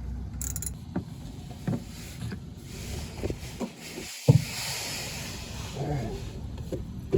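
Loosened oil drain plug on a Chevy Silverado 4.3L V6 oil pan being backed out by hand, with small clicks and knocks of metal and the drain pan, one sharp knock about four seconds in. Engine oil then starts pouring out into a drain pan with a steady hissing splash.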